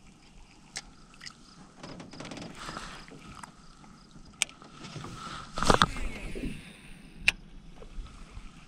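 Fishing tackle handled in a small boat: scattered sharp clicks and knocks, a faint steady whir through the middle, and a louder knock just before six seconds in.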